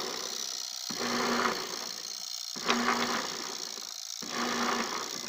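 Top-loading washing machine's motor driving the agitator back and forth through the belt and gearbox, with a rattling hum: it runs for about a second and a half, cuts out briefly, and starts again, about three times. It is running on a used test control board, which agitates both ways only briefly before driving to one side only.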